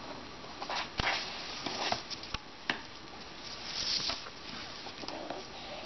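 Micro cord being drawn through a paracord bracelet by hand: a few small clicks and rustles, with a brief high swish about four seconds in as the cord is pulled through.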